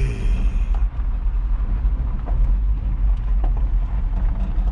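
Vehicle engine and road rumble heard from inside the cab: a steady low rumble with a few light knocks and rattles scattered through it.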